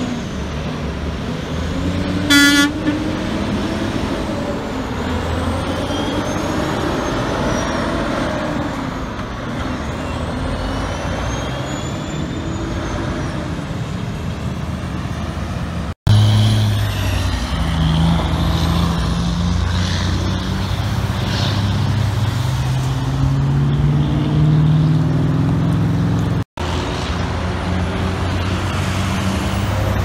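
Heavy diesel dump trucks driving past, engines running with high, thin turbo whistles rising and falling above them. A short horn toot sounds about two seconds in, and the sound cuts abruptly twice.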